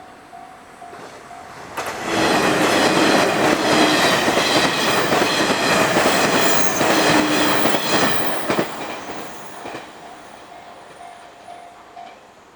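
A Japanese level-crossing warning bell dings steadily, about twice a second, as an electric train comes through. The train passes loudly for about seven seconds with the clickety-clack of its wheels over the rail joints. As the train fades, the bell is heard again and stops shortly before the end.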